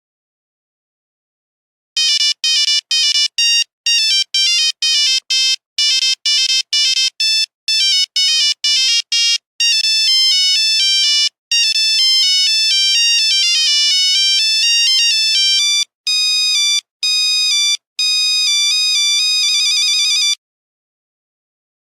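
Monophonic Nokia ringtone playing a single-line melody of buzzy electronic beeps. It starts about two seconds in with quick, short detached notes, moves to longer held notes, and ends with a fast warbling trill.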